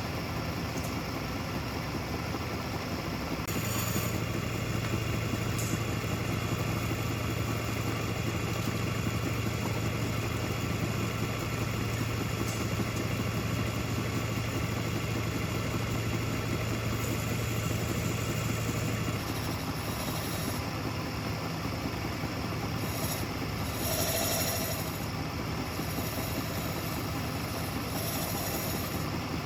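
Wood lathe running, a steady motor hum with a low drone that strengthens a few seconds in and eases off about two-thirds of the way through. In the last third, short bursts of high hiss come and go.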